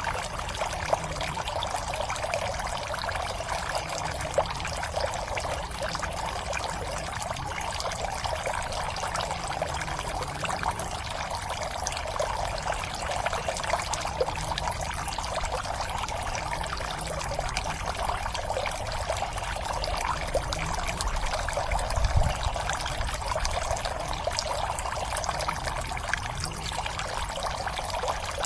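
Water steadily trickling and splashing into a pond, a continuous pouring sound full of small splashes, with a low rumble beneath it and one brief low thump about three quarters of the way through.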